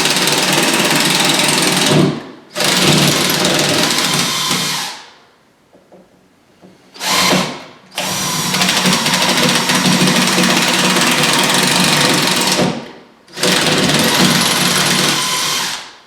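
Power drill boring pilot holes into a wooden wall stud, running in five bursts: two of a few seconds each, a short one after a pause of about two seconds, then two longer runs, with a steady low hum under the drilling.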